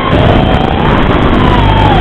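Racing quadcopter's four Cobra 2204 2300kv motors spinning three-blade Dalprop 5040 props, a loud whine whose pitch drops sharply at the start as the throttle is cut, climbs back within about a second, and dips again near the end.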